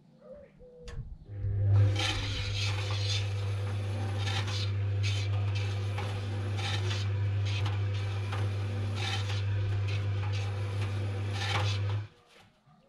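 Washing machine drum turning with balloons inside. The motor hums steadily while the balloons rub and scrape against the drum, the noise swelling every couple of seconds. It starts about a second in and stops abruptly near the end, the usual turn-and-pause of a wash cycle.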